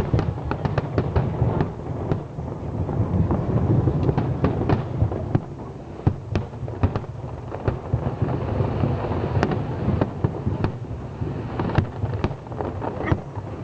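Aerial fireworks display: a continuous low rumble of shell bursts with many sharp bangs and crackles scattered over it, thickest in the first couple of seconds.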